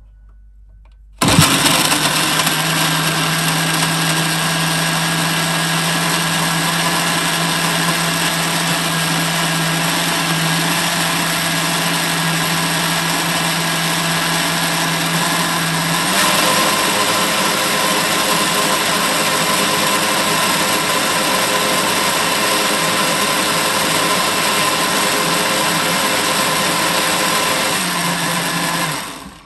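Electric countertop blender switched on about a second in, running steadily as it blends mango, milk and yogurt into lassi. Its tone changes slightly about halfway through, and it winds down near the end.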